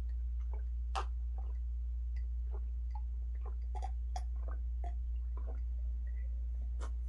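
Close-miked eating sounds: scattered wet mouth smacks and chewing clicks, a few a second, as someone eats fufu with turkey stew, over a steady low hum.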